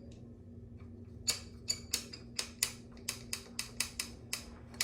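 Spinning curling iron clicking rapidly, about four clicks a second, over a faint steady motor hum.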